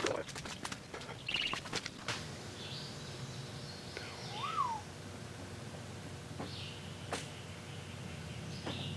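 Birds chirping outside: a few short chirps and one rising-and-falling whistled note. Several clicks and knocks of handling come in the first two seconds, with a couple more later, over a faint low hum.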